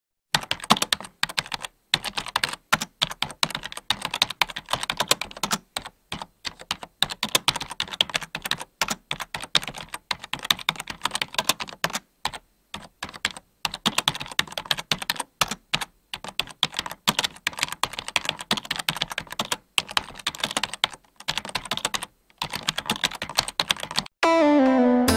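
Computer keyboard typing: a fast, irregular patter of key clicks with brief pauses, used as a typing sound effect. Music comes in about a second before the end.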